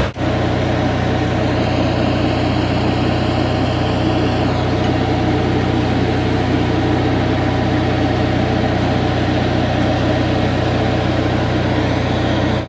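An engine running steadily at idle: a loud, even, low hum that does not change.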